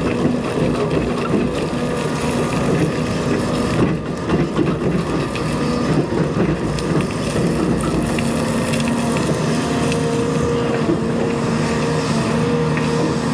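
Cat 335 excavator's diesel engine running steadily under working load while leveling gravel, a constant hum with a rougher, noisier texture in the first half that settles into an even drone later.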